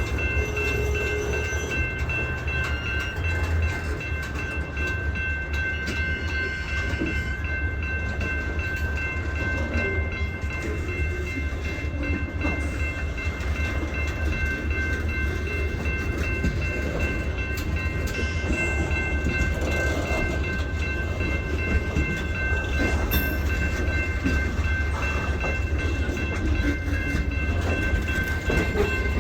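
Diesel freight locomotive running, a steady low rumble with a few thin, steady high-pitched tones over it.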